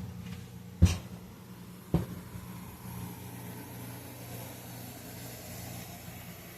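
Three dull knocks about a second apart over a steady low electrical or appliance hum.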